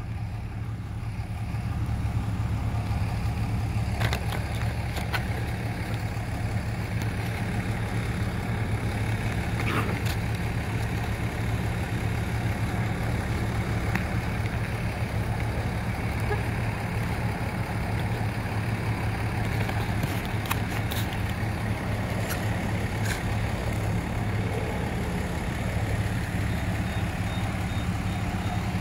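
Steady low mechanical hum, with a few faint sharp clicks scattered through it.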